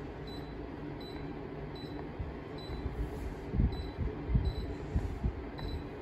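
A string of short, high electronic beeps, one to two a second, as the off-timer button on a Mitsubishi room air conditioner's remote is pressed repeatedly. Under them runs a steady low rushing noise, and a few dull handling thumps come in the second half.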